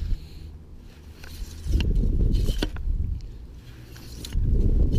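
Lugworm bait pump being worked down into wet beach sand, making two stretches of low, rough noise with a few sharp clicks from the pump.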